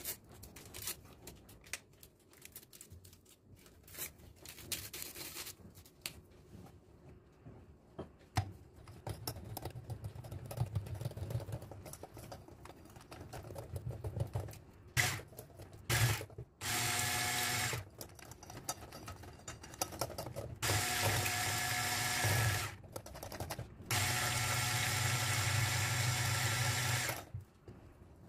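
Electric hand mixer beating batter in a glass bowl, running in three loud steady bursts in the second half, a second to a few seconds each, after a lower hum; light clinks and knocks of handling before it starts.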